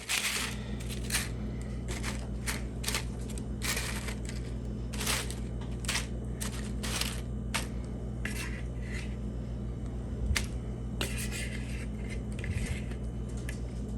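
A utensil scraping and clinking against a bowl in many short, irregular strokes as shredded pheasant meat is spooned out over tortilla chips in a pan, over a steady low hum.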